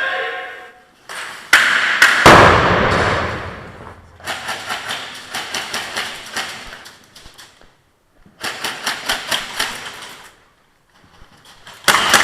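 Airsoft guns firing in strings of rapid shots, about three a second in the longer strings, each shot echoing. A little after two seconds in comes one louder bang with a long echo.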